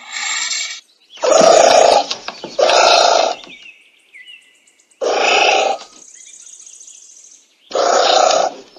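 Anteater calling: four short, noisy calls, each a little under a second long, about two seconds apart, with a faint high buzz between the last two.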